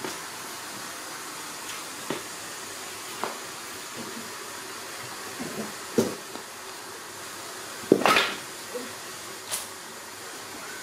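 Scattered knocks and taps from a baby monkey clambering on a corrugated metal sheet and a wooden chopping block, over a steady hiss; the loudest, a short clatter, comes about eight seconds in.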